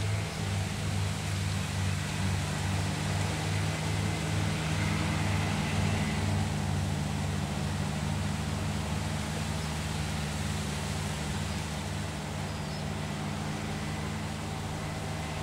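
Diesel engine running steadily, a low hum with a throb about twice a second that fades over the second half.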